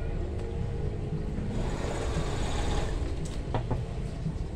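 Fabric rustling as a length of sewn cloth is pulled through and away from a domestic sewing machine, the rustle loudest in the middle, with a few sharp clicks afterwards. A steady low mechanical hum runs underneath.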